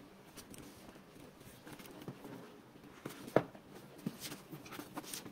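Hands handling a toy figure's box and packaging: scattered soft rustles and light clicks, with one sharper knock about three and a half seconds in.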